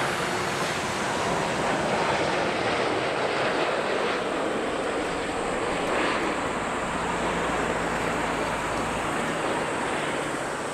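Boeing 787 airliner's jet engines roaring as it passes low and close on final approach to land. A whine in the roar falls in pitch over the first few seconds, and the sound eases off near the end.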